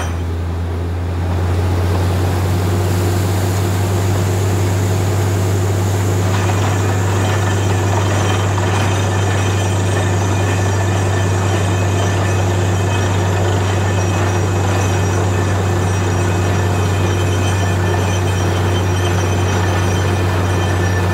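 Truck-mounted borewell drilling rig running steadily while drilling: a deep, even engine and compressor drone, with the hiss and splatter of compressed air blowing mud and cuttings out of the bore. It is a little quieter for the first second or so, then holds level.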